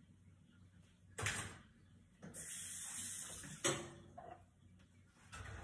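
Household handling sounds while a glass-top electric stove is cleaned: a knock about a second in, then a steady hiss lasting over a second that ends in a sharp click.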